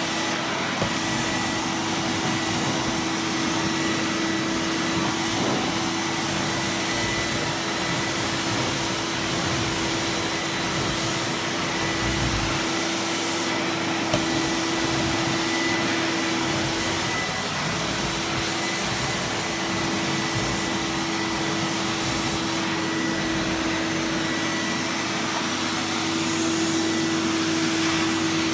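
Zelmer Wodnik 5 Profi System (model 619.5.B51E) washing vacuum cleaner running steadily while its carpet-washing nozzle is worked over a rug. It makes an even rushing hum with a steady low tone and a faint high whistle.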